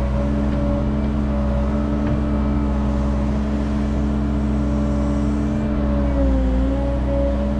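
Caterpillar 306 mini excavator's diesel engine running steadily while the machine digs and dumps clay, heard from the operator's seat. The engine note dips briefly about six seconds in as it takes a hydraulic load, then recovers.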